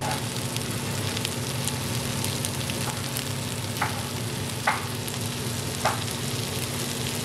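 Breaded chicken tenders frying in a pan: a steady sizzle with a few sharp pops of spattering fat, about one every second near the end, over a steady low hum.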